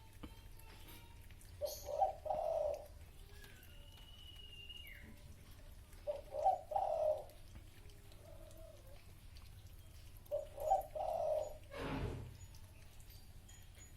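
A dove cooing: three short multi-note coo phrases, repeating about every four seconds. A brief soft noise, like a bump or rustle, comes near the end.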